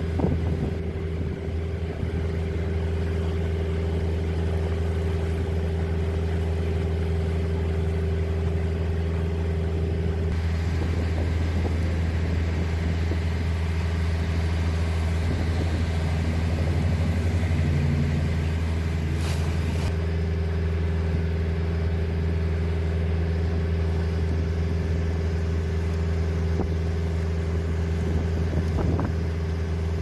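A boat engine running at a steady speed under way, a constant low drone with water and wind noise over it. Past the middle another boat's engine passing close adds a second tone for a few seconds.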